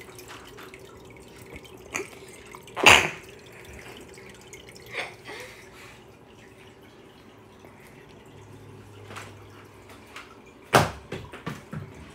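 Aquarium hang-on-back filter trickling water back into the tank, with a faint steady hum. A few short sudden thumps break in, the loudest about three seconds in and another near the end, followed by a quick run of clicks.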